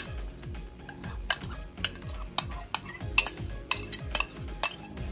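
Metal spoon clinking and scraping against a ceramic bowl, about two sharp taps a second, as annatto colouring is scraped out into the pot.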